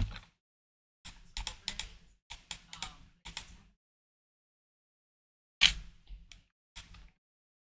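Typing and clicking on a computer keyboard: a quick run of key clicks for a couple of seconds, then a louder click and a few more after it, with complete silence between.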